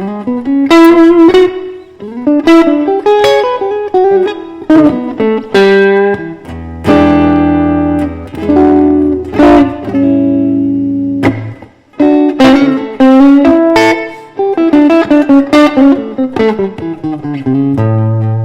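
Solo electric guitar, a Fender Stratocaster, playing a blues in the key of E: picked single-note licks and chords over ringing low bass notes.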